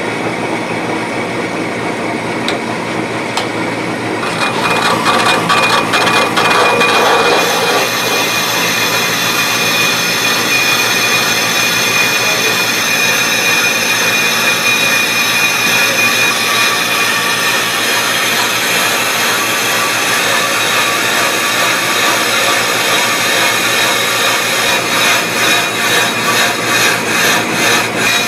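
Bench brake lathe spinning a Chevy Silverado 2500 HD front brake rotor while its cutting bits take a resurfacing pass on both faces. It makes a steady metallic machining sound with a high ringing tone, louder from about five seconds in and pulsing near the end.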